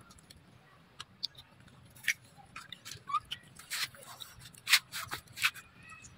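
Baby macaque chewing a piece of green food close up: a string of irregular, crisp crunches and clicks, coming thicker and louder in the second half.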